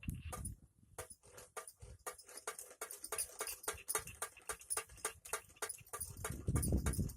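Bird-scaring device clacking: a fast, uneven run of sharp clicks, roughly seven a second, with a low rumble near the end.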